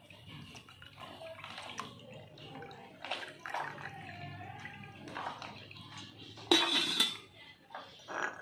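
Water poured from a stainless steel kettle into a drinking glass, splashing as the glass fills. A louder knock comes about two-thirds of the way through.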